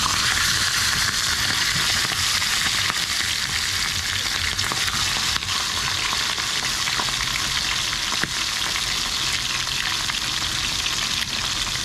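Raw chicken leg quarter frying in hot oil in a small pan: a loud, dense, steady sizzle with fine crackle.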